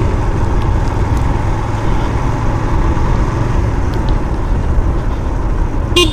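Yamaha FZ-3 motorcycle riding along a road, its single-cylinder engine running steadily under a heavy rush of wind and road noise.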